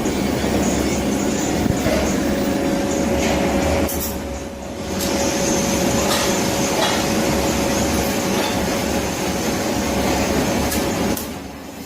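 Argon (TIG) welding in a training workshop: a steady, loud noise with a constant hum running under it. It drops off briefly about four seconds in, then again near the end.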